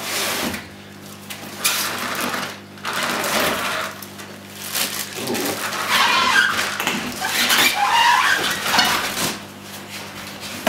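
Plastic wrap crinkling and cardboard scraping as a plastic-bagged radio-control truck is handled and pulled out of its cardboard box. The rustling comes in irregular spells and is loudest and most crinkly in the second half.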